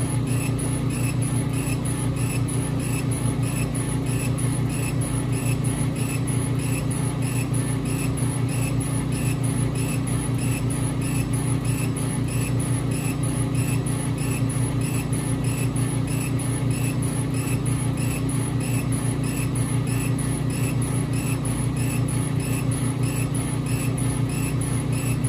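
Epilog Fusion M2 40 laser cutter raster-engraving wood: the laser head's carriage sweeps back and forth in a regular beat of about two passes a second, over a steady low hum of the running machine.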